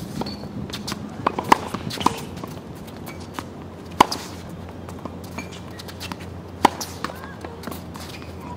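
Tennis ball struck by a racket, sharp cracks every few seconds, the loudest about four seconds in, with lighter taps of ball bounces and footwork on the hard court between.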